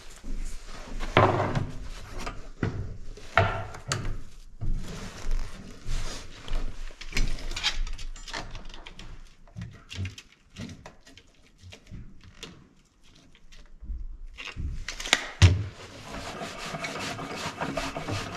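Hands-on carpentry on wooden framing: irregular knocks, scrapes and rubbing of lumber and hardware, with one sharp, louder knock about fifteen seconds in, followed by a steadier rasping.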